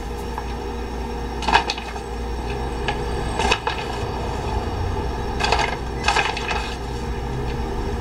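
A spoon scooping powdered milk from a plastic bag and tapping it into a glass blender jar: a few scattered light clicks and scrapes over a steady low hum.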